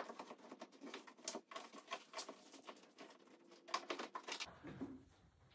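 Rubbing, scuffing and quick small clicks of an Ergolock foam knee pad being pushed and worked into place against a Sea-Doo Spark's plastic hull, a busy run of taps and scrapes that eases off about four and a half seconds in.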